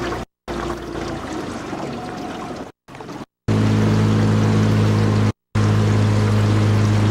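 Small outboard motor running steadily at cruising speed, with water rushing past the hull; about halfway through the engine's steady low hum comes out strongly. The sound cuts out to silence for a moment several times.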